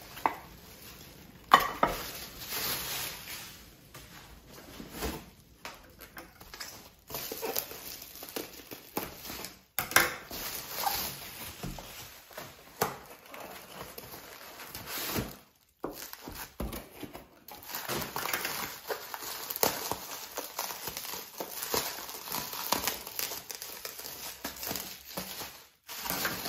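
Plastic bags and bubble wrap crinkling and rustling as ceramic plates and bowls are unwrapped, with a few sharp clinks and knocks of the dishes being handled, the loudest about a second and a half in and again near ten seconds.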